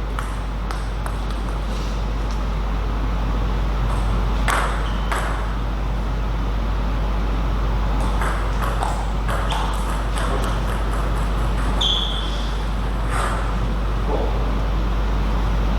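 Celluloid-type table tennis ball clicking off bats and the table in irregular sharp knocks, with a short high squeak about twelve seconds in. A steady low hum sits under it all.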